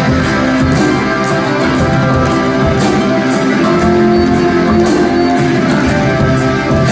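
Background rock music: guitars over a steady drum beat.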